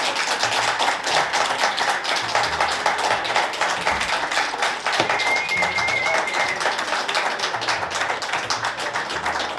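Several people clapping fast and steadily, with a brief high note about halfway through.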